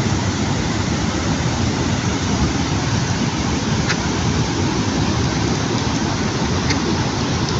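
Waterfall: a steady, loud rush of falling water, with a faint click about four seconds in and another near the end.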